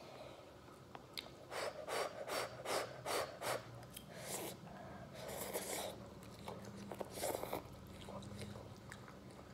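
Eating very spicy instant cup noodles: a run of short, sharp intakes of air through the mouth, about two or three a second, then longer slurps and chewing.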